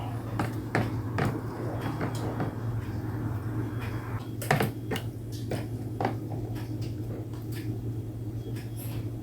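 Scattered light clicks and knocks of things being handled, with the strongest about four and a half and six seconds in, over a steady low hum.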